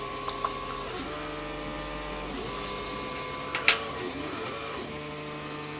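Stepper motors of a running 3D printer whining in shifting steady tones that stop and start. Over it come small metal clicks from parts being handled and one sharp clack about three and a half seconds in, as an Allen key is set down on the cutting mat.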